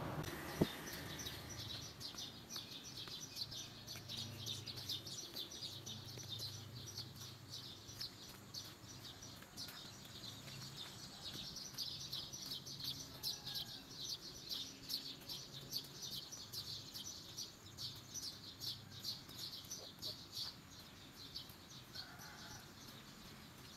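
Small birds chirping continuously in quick, high notes, over a faint low hum, with one sharp click about half a second in.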